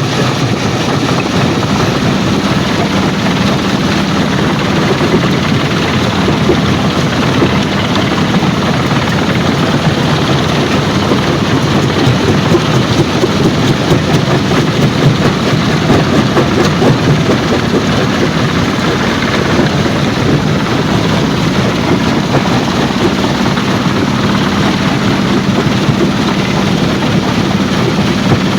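Heavy machinery running steadily: an engine hum over a dense, unbroken din.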